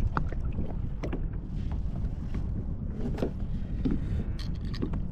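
Wind rumbling on the microphone and water moving around a fishing kayak, with scattered small knocks and clicks.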